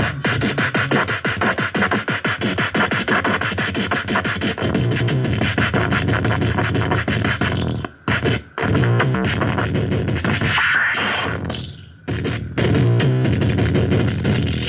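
Electronic music with synthesizer and a fast pulsing rhythm, breaking off briefly twice.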